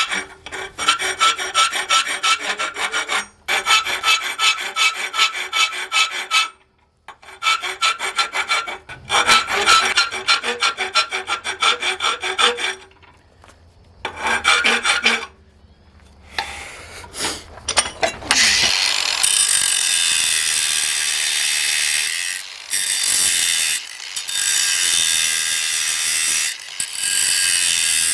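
Hand file worked rapidly back and forth over steel, several strokes a second in runs with short pauses, each stroke with a slight ring. About two-thirds of the way through, a steadier power-tool sound takes over.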